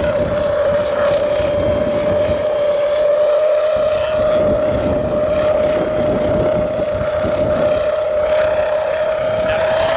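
A drone in flight under a full payload, its propellers giving a steady hum on one pitch that creeps slightly higher near the end, with wind rumbling on the microphone underneath.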